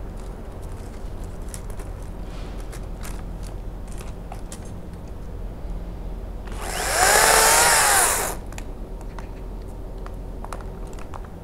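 A Makita top-handle battery chainsaw is run once, for about a second and a half, past the middle; its motor whine rises and then falls as it spins up and coasts down. Under it runs a steady low rumble with faint clicks.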